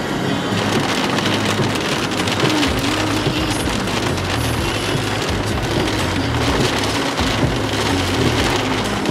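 Rain pattering on the windshield and roof of a moving car, a dense hiss of drops over the low rumble of the car on the wet road.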